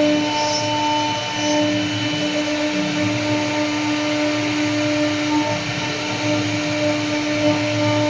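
CNC wood router carving wood: the spindle motor running with a steady whine over the hiss of the bit cutting, its pitch lines fading in and out as the cut goes on.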